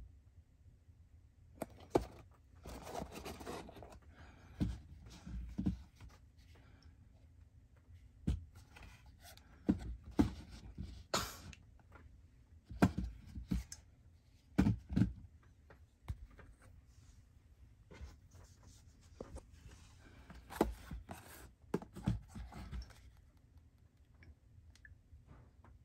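Hands handling a cardboard perfume box and a rubber-coated perfume bottle on a shelf: scattered knocks and taps as they are picked up and set down, with stretches of cardboard rustling and a brief hiss about eleven seconds in.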